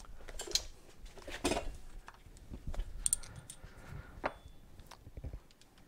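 Steel cylinder studs and other small metal engine parts clinking and knocking as they are handled and set down on a workbench, a handful of separate clinks.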